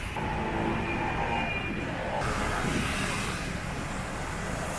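Road traffic noise: vehicle engines running in a busy street, with an abrupt change in the sound about two seconds in.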